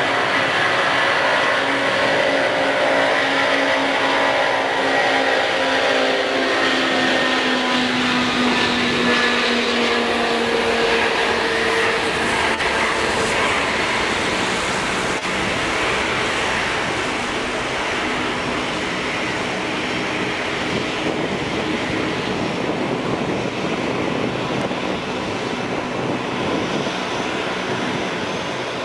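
Four Lotarev D-18T turbofans of an Antonov An-124 taxiing past. A loud jet whine slides down in pitch over the first dozen seconds as the aircraft passes and moves away, then settles into a steady rushing engine noise.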